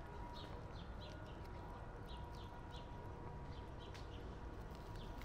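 Cats chewing wet cat food from a paper plate: an uneven run of faint wet smacking clicks, about two to three a second, over a low outdoor rumble.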